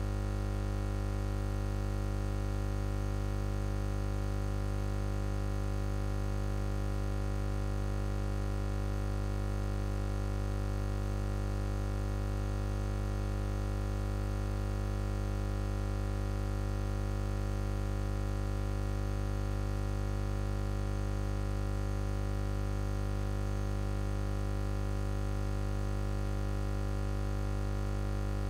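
A steady electronic drone: a low hum with many fixed tones stacked above it, unchanging in pitch and level throughout.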